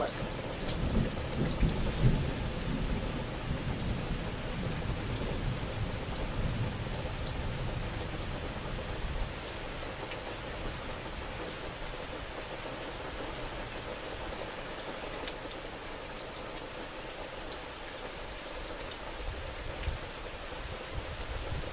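Steady rain falling, with a low thunder rumble through the first several seconds that fades away.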